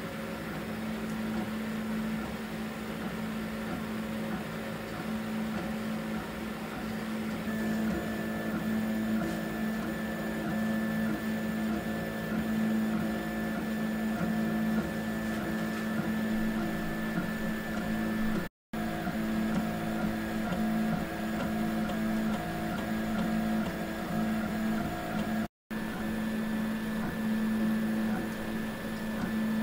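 Bad Robin DIY 3D printer running a print, its stepper motors giving a steady, pitched machine whine; the sound cuts out briefly twice.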